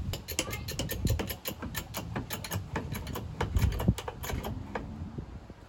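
Four-ton hydraulic bottle jacks being pumped by their lever handles under load as they jack a Land Cruiser's body up off the frame: a rapid, irregular run of metallic clicks and clacks with low knocks.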